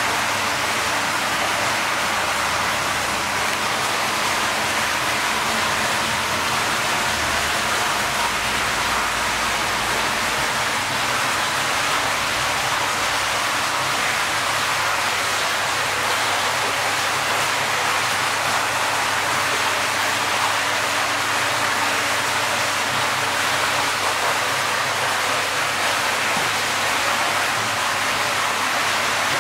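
Steady rush of running or splashing water, even throughout, with a faint low hum beneath it.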